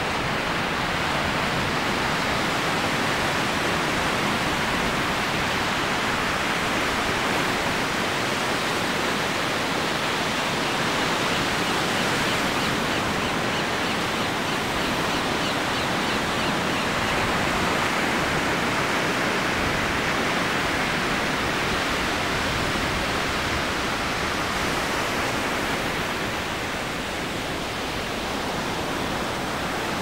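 Ocean surf breaking continuously, heard as a steady, even wash of noise that eases off slightly near the end.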